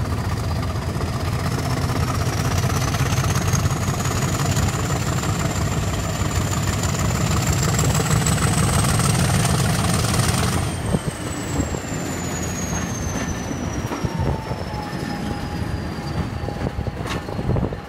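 Hornby Class 50 OO gauge model locomotive running around the layout: a high motor whine over a rumble of wheels on track. The whine climbs slowly in pitch for about ten seconds, then drops in level suddenly and slides down in pitch as the locomotive runs away. The motor is a little louder than normal, which the owner puts down to it still working its grease and oil in.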